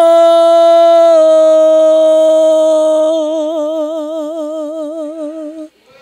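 A woman singing into a handheld microphone, holding one long note of a worship song. The note is steady at first and takes on a wide, regular vibrato about halfway through, then stops shortly before the end.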